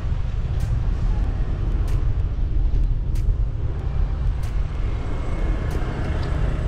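Steady low rumble of wind and road noise on a camera riding along with a bicycle, with a sharp click every second or so.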